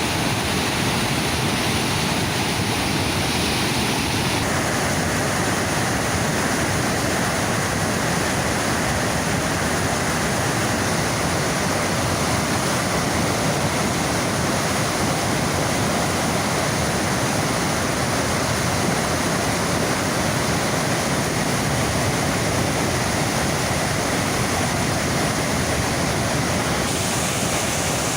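Steady, loud rush of the Niagara River's rapids just above the brink of Niagara Falls. The character of the rush shifts slightly about four seconds in and again near the end.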